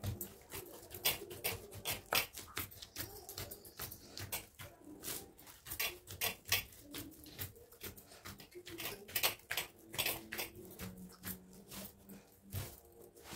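Dough being kneaded by hand in a clay bowl: soft pats and squelches of the dough, with the bangles on the wrists clinking in quick, irregular clicks, several a second.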